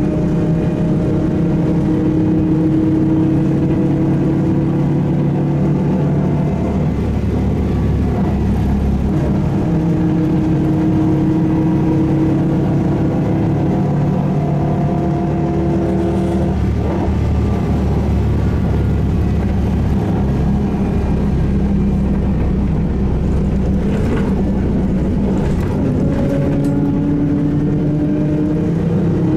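SVARZ-MAZ-6235.00 trolleybus running, with a steady low rumble and an electric motor whine that slowly rises in pitch as it gathers speed. The whine falls away a little past halfway and returns, rising again, near the end. A few short knocks come a little before the end.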